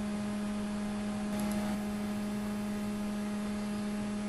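Steady electrical hum, a low constant tone with fainter overtones above it, with a brief faint rustle about a second and a half in.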